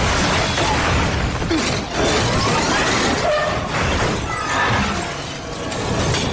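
Film action-scene sound effects: a car smashed and flung into the air, with repeated crashing impacts, crunching metal and shattering glass over film music.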